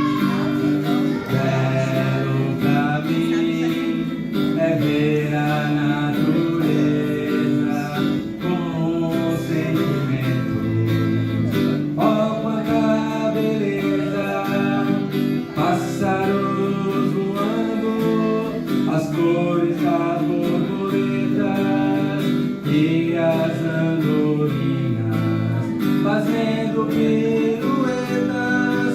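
Acoustic guitar playing an instrumental interlude of a song, strummed chords with a moving melody line over them.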